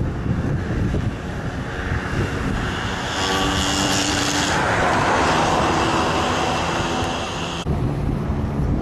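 Wind buffeting the microphone, with a passing engine swelling from about two seconds in and cutting off suddenly near the end.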